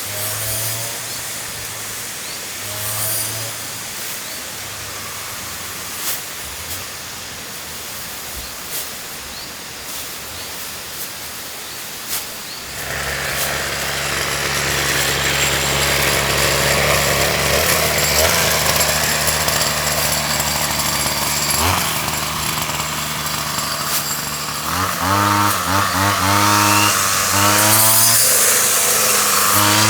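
A small motor, that of a mini rice threshing machine, starts up about halfway through and runs steadily. Near the end its pitch wavers up and down again and again. Before it starts there is only a fainter noise with a few clicks.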